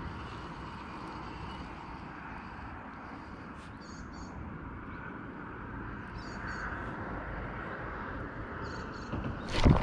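Steady low background rumble with a small bird's short, high double call repeating every two to three seconds. Near the end comes a sharp knock as the spinning reel is handled.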